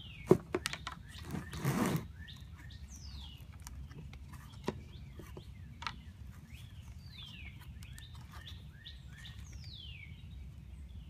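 Small birds chirping repeatedly, in short quick falling chirps, over a low steady background rumble. In the first two seconds a few sharp clicks and a brief scraping sound come from a thin strip being handled and pressed into the groove of a metal door frame.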